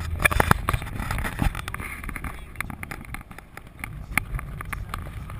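Tour Jeep driving along a paved street, heard from inside the vehicle: a steady low engine and road rumble with wind buffeting the microphone. Frequent sharp clicks and knocks, thickest in the first second and a half.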